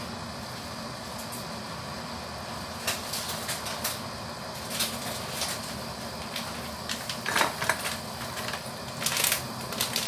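Coconut-milk vegetable curry simmering in a wok on a gas burner: a steady hiss with irregular small pops and crackles of bursting bubbles, more frequent from about three seconds in.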